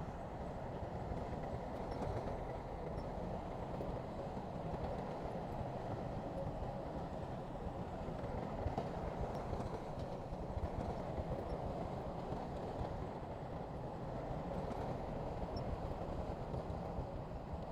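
Heavy construction machinery running steadily: a continuous low diesel rumble with no pauses or sharp knocks.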